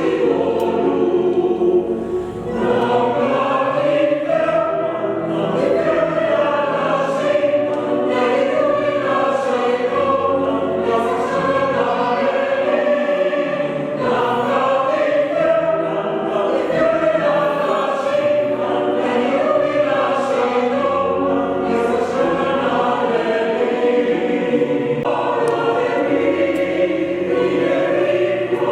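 A choir singing, its voices held in long sustained notes, with short sibilant consonants cutting through now and then.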